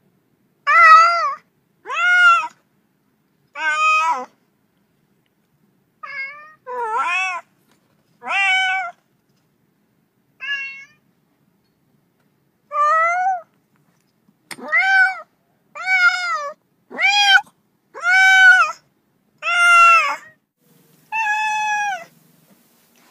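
Domestic cat meowing again and again: about fourteen separate meows, each rising then falling in pitch, with short pauses between them.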